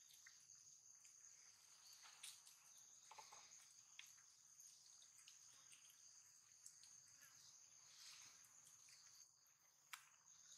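Faint, steady high-pitched drone of insects, crickets or cicadas, with a few soft ticks scattered through it.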